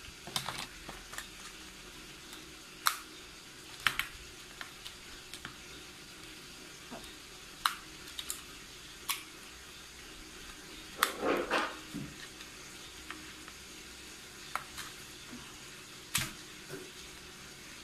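Scattered sharp plastic clicks and light rattles of a Beyblade spinning top being fitted and twisted onto its launcher, with a short burst of clattering about eleven seconds in.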